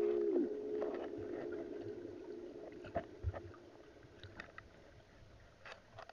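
Background music that slides down in pitch and fades out over the first few seconds, leaving faint scattered clicks and a soft thump about three seconds in.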